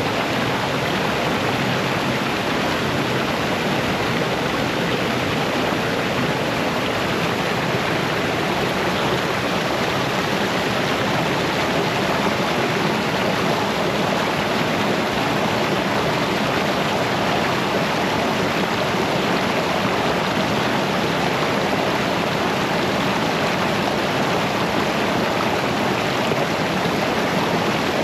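Steady, even rush of a mountain river's water tumbling over rocks and small falls.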